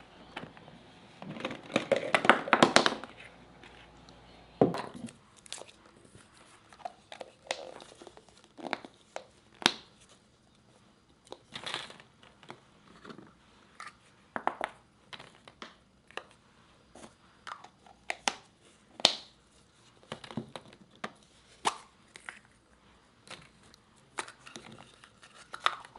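Hollow plastic Easter eggs clacking and rattling against one another as they are handled, a dense run of clatter about a second in, then scattered sharp clicks and taps as single eggs are pulled apart and set down.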